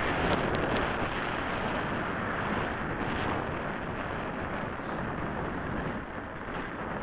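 Wind rushing over the microphone of a camera on a moving bicycle, a steady rumbling noise mixed with road noise from the ride, with a few faint ticks about half a second in.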